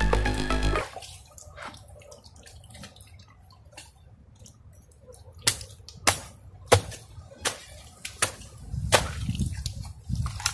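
Background music cuts off about a second in. Then come wet squelches, drips and splashes of hands working mud and water at a mud crab burrow in mangrove mud, with scattered sharp clicks.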